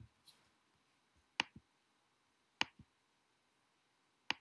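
Computer mouse button clicking: three sharp clicks spaced more than a second apart, each followed closely by a fainter release click.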